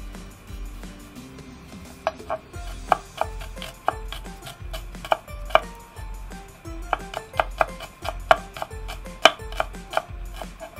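Kitchen knife mincing garlic cloves on a wooden cutting board: a run of sharp knocks of the blade against the board, several a second and unevenly spaced. They start about two seconds in, after a few softer slicing strokes.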